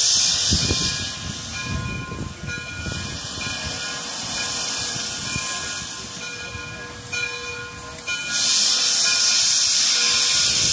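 Frisco 1630, a 2-6-0 steam locomotive, hissing as it blows steam from its open cylinder cocks, with low chuffing pulses as it moves slowly. The hiss is loudest at the start, eases off, then comes back loud about eight seconds in.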